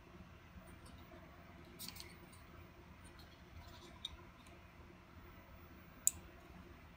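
Black plastic parts of an ASUS dual-band wifi antenna being handled and pressed together: faint rubbing with a few small plastic clicks, the sharpest near the end as the cable is pressed into the base.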